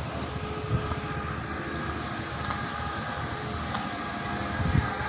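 Steady low mechanical rumble with a faint hum, as from an engine or machine running some way off, and two short low thumps, one about a second in and a louder one near the end.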